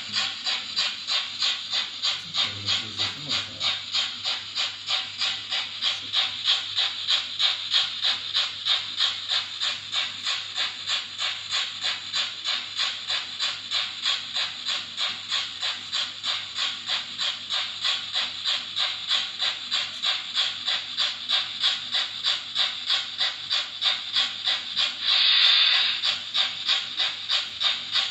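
Märklin model steam locomotive's sound module playing steady, rapid steam chuffs, about three a second, as the engine runs. Near the end a louder hiss of steam lasts about a second.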